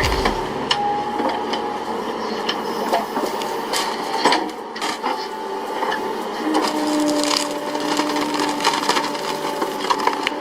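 Wood cracking and splintering under a machine, a string of irregular sharp snaps with faint steady tones underneath.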